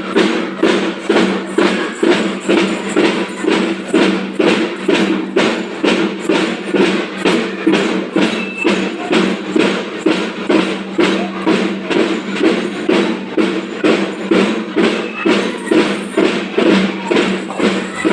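Marching drum band playing a steady beat, with drums and percussion striking about twice a second over a held pitched tone.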